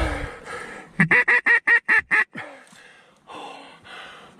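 Mallard duck call blown in a quick, evenly spaced string of about eight loud quacks, about a second in, in the manner of a hen mallard's greeting call to bring circling ducks in.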